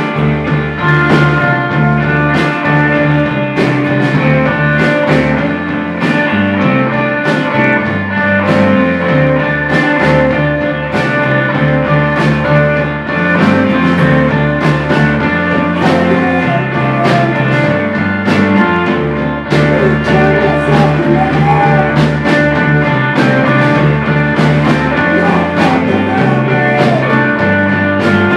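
Live rock band playing loud and steady: distorted electric guitars and bass guitar over a drum kit keeping an even beat.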